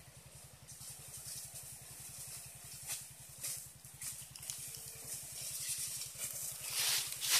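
Engine-driven power sprayer pump running with a rapid, even pulse, under the hiss of a high-pressure water jet from a spray gun. The hiss and crackle grow louder near the end.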